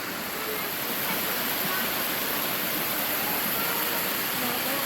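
Steady rush of a mountain stream and waterfall tumbling over rocks.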